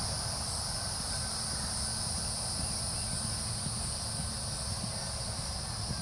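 Steady, high-pitched insect chorus in two continuous bands, over a low rumble with soft irregular thuds.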